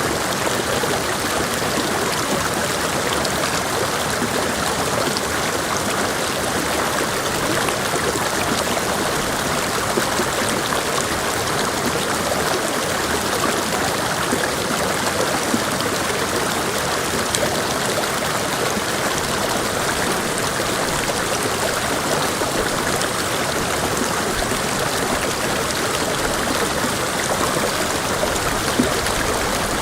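Mountain creek water rushing and splashing over rocks, a steady, even flow.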